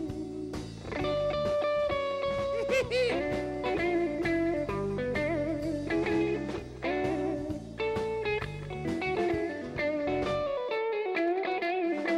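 Live band's instrumental break: an electric guitar solo with bent, wavering notes over bass and drums, in a bluesy swing style. Near the end the bass drops out and the guitar plays a stepped falling run.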